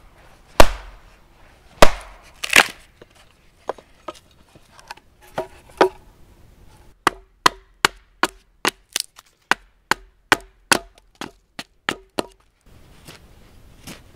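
Axe chopping and splitting wood: three heavy chops in the first few seconds, then a run of lighter, quicker knocks, about two or three a second, each with a short ring, from around seven seconds in until a little past twelve seconds.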